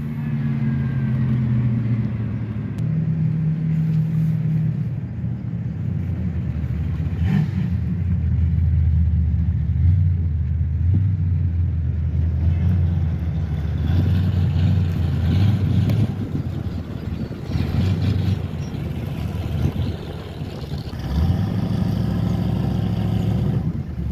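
GM pickup truck engine heard from inside the cab while driving, its pitch rising and falling as it is throttled up and eased off several times.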